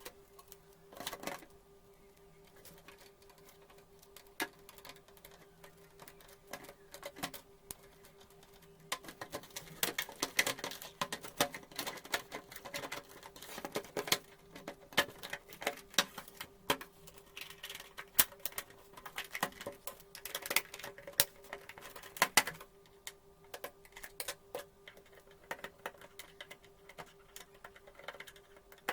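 Irregular clicks and taps of small plastic and metal parts of an induction cooktop being handled and fitted back together, sparse at first, then a dense run of them from about a third of the way in until near the end. A faint steady hum lies underneath.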